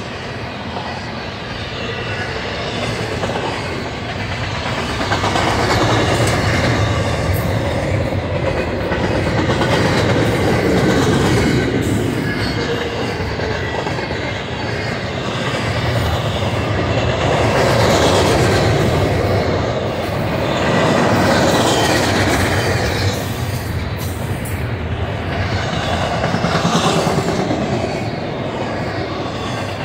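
Double-stack intermodal container train's well cars passing close by, with the steady noise of steel wheels running on the rails. It grows louder and softer every few seconds as the cars go by.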